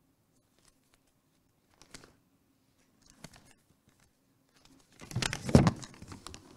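Low steady hum with a few soft clicks, then about five seconds in a loud burst of rustling and knocks as a handheld microphone is picked up and handled.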